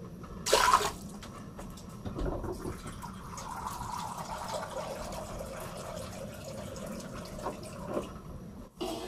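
Water heating in a stainless steel pot on the stove, not yet boiling: a steady hiss with scattered small ticks. There is a short, sharper knock about half a second in.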